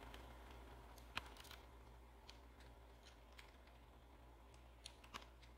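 Keycaps being pushed onto the switch stems of an Apple Macintosh keyboard: a few faint, scattered plastic clicks, the sharpest about a second in and a pair close together near the end.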